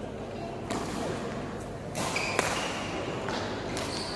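Badminton rally in a sports hall: several sharp racket hits on the shuttlecock, with short high squeaks of shoes on the court floor.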